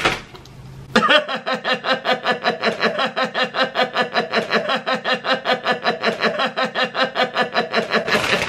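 A man laughing in a long, rhythmic run of "ha-ha-ha" pulses, about five a second, starting about a second in.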